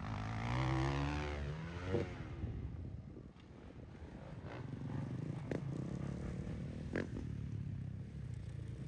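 Dirt bike engine revving hard for the first two seconds, its pitch rising and falling, then dropping to a faint low drone as the bike moves off, with a couple of sharp clicks later on.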